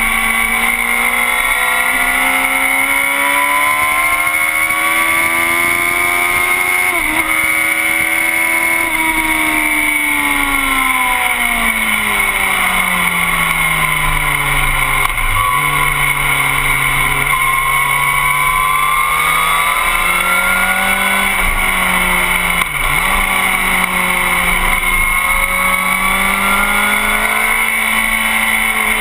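Motorcycle engine at speed on a racetrack, its pitch rising and falling with the throttle through the corners, with three brief sharp dips.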